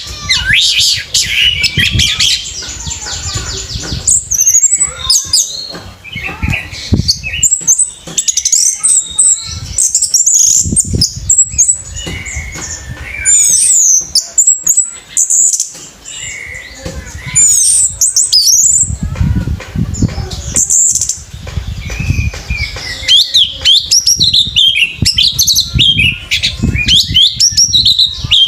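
Orange-headed thrush (anis merah) singing a long, fast, varied song of chirps, trills and warbling glides, with brief pauses, over low thumps.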